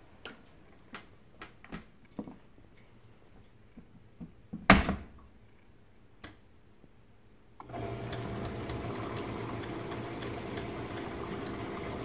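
Jenn-Air dishwasher door pushed shut with a few light clicks, then latching with a single loud thud about five seconds in. Nearly three seconds later the wash pump starts again with a steady hum and the rush of water spraying inside the tub, the machine resuming its wash.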